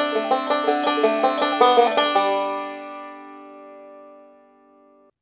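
Five-string bluegrass banjo picked with fingerpicks, playing a quick rolling lick over a D7 chord that resolves to G about two seconds in. The G chord then rings and fades, and stops abruptly just before the end.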